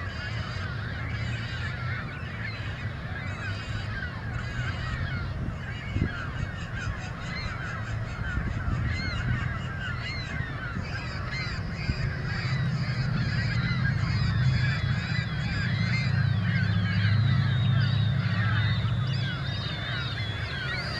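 A large flock of birds calling all at once, many short overlapping calls. Beneath it a low rumble grows louder in the second half.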